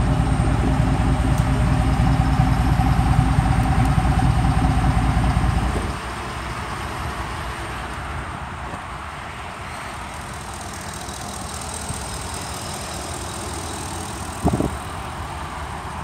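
2009 Ford F-150's 5.4-litre three-valve V8 idling with its electric exhaust cutout open, the exhaust bypassing the muffler for a loud, evenly pulsing low rumble. About six seconds in the sound drops abruptly to a much quieter, steadier rumble, with a short knock near the end.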